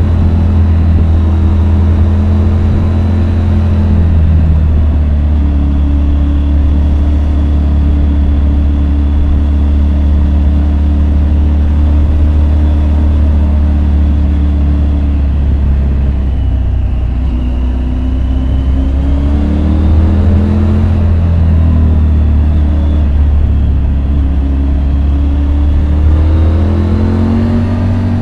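Triumph Tiger 850 Sport's 888 cc three-cylinder engine running under way, its pitch holding steady for long stretches and then rising and falling several times in the later part, over a heavy steady low rumble.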